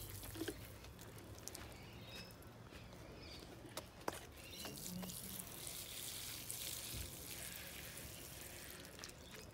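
Faint trickle of water pouring from a small plastic watering can onto garden soil and seedlings, with a couple of light knocks about four seconds in.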